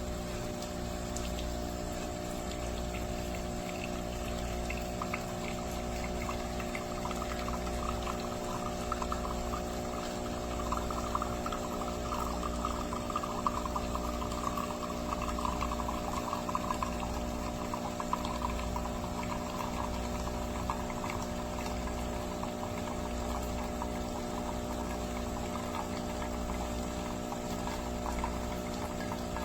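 Philips LatteGo fully automatic espresso machine's pump humming steadily while liquid streams out of the spout. The pouring is loudest for several seconds in the middle.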